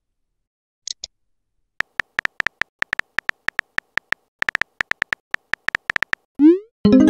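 Simulated phone keyboard tap sounds: a long run of short, beep-like clicks in quick irregular succession as a message is typed letter by letter. Near the end comes a quick rising swoosh, the message-send effect, and then a louder chime.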